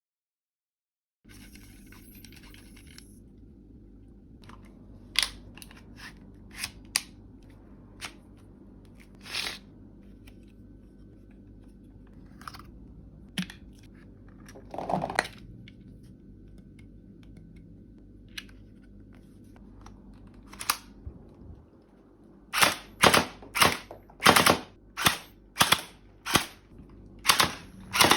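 Toy gel blaster firing gel balls: scattered single shots over a faint steady hum, then near the end a quick string of about a dozen shots, two to three a second.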